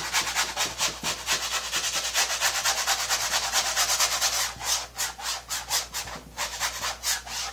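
Bristle paintbrush scrubbing a thin brown underpainting wash into stretched canvas in quick back-and-forth strokes, about three or four a second, working the paint into the weave. The strokes get a little softer about halfway through.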